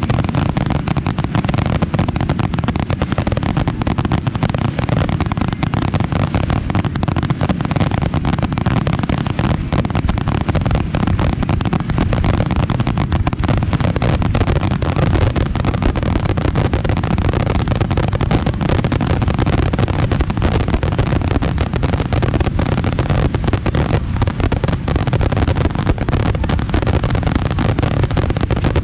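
Finale barrage of aerial fireworks: a dense, unbroken rapid string of bursting shells and crackling, the bangs overlapping so fast they merge into a continuous rumble.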